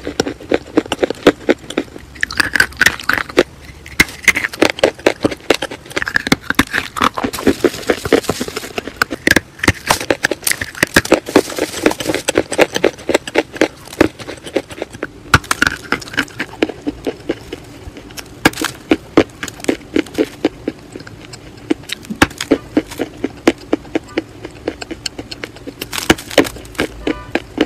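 School chalk chewed close to the microphone: a dense, fast run of sharp crunches and crackles, several a second, with wet mouth sounds between them.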